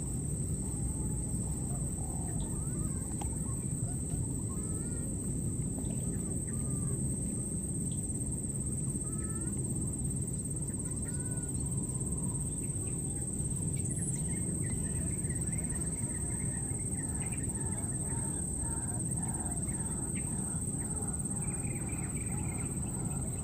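Outdoor field ambience: a steady low rumble under a constant high, thin insect drone, with faint short chirping calls scattered through it and more of them in the second half.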